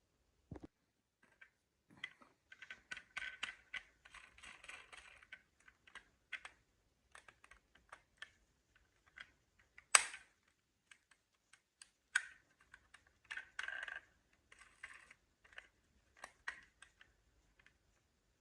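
Marbles rolling and clacking through a wooden Cuboro and Quadrilla marble run: scattered sharp clicks and runs of quick rattling, with a loud knock about ten seconds in and another about twelve seconds in.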